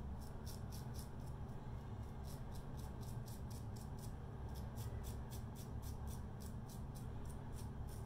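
Gem Pushbutton single-edge safety razor scraping a day's stubble off the upper lip in short quick strokes, about three or four a second, over a low steady hum.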